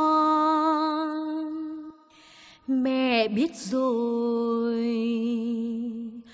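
A woman singing a Tày Then folk song, holding a long note with vibrato. About two seconds in she breaks for a breath, then takes up a new note that wavers before settling into a lower long held note.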